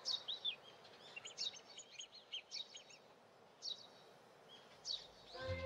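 Birdsong: many short chirps and twitters, scattered through, over a faint hiss. Music begins just before the end.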